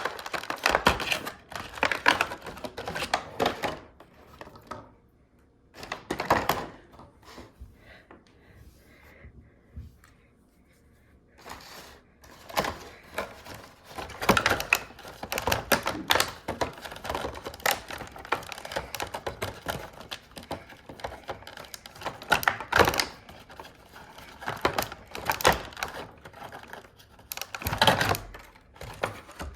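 Plastic toys and packaging being handled and unpacked: rapid, irregular clicks, taps and knocks of plastic and cardboard, with a few quieter seconds about a third of the way in.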